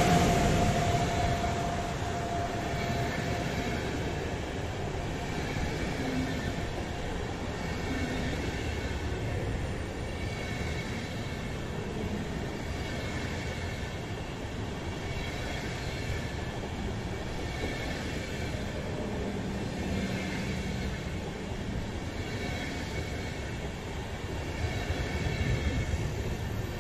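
Passenger coaches of a PKP Intercity train rolling past on the station track: a steady rumble of wheels on rail. A high tone left by the passing locomotive fades out in the first few seconds, and the sound swells a little near the end as the last coach goes by.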